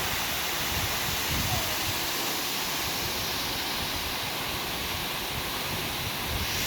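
Marymere Falls, a waterfall, with a steady rush of falling water.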